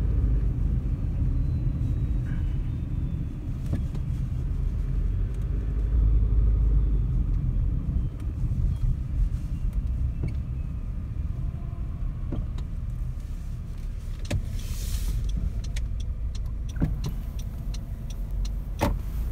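Street traffic noise: cars and a Z3-class tram moving slowly in a queue, under a steady low rumble. Late on there is a brief hiss, then a run of sharp clicks and knocks near the end.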